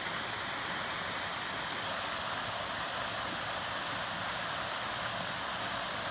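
Small waterfall: water spilling over a low weir and churning in the pool below, a steady rushing hiss.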